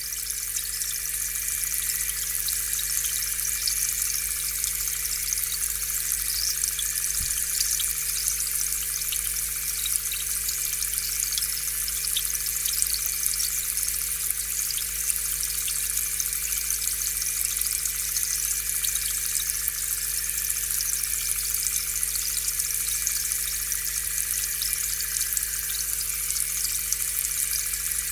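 Aquarium air pump running steadily, pushing air through the tank so bubbles keep breaking at the water surface with a fast, fine crackle, over a low electric hum.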